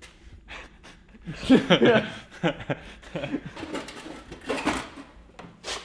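Men laughing, loudest about one and a half seconds in, with a few sharp metal knocks as a vertical-shaft riding-mower engine is pulled off its mount.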